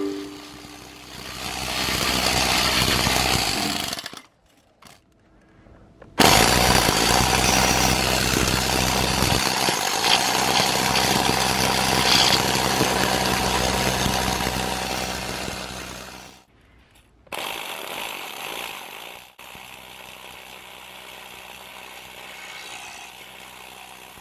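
Nitto Kohki electric needle gun hammering rust and scale off a steel boat deck. It runs in three bursts: about three seconds, then a long run of about ten seconds, then a short one of about two seconds, and it is softer over the last few seconds.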